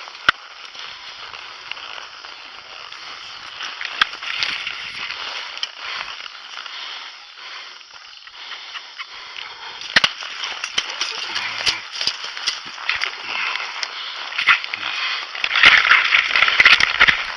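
Crackling, rustling noise with many sharp snaps and clicks, swelling to its loudest in the last couple of seconds.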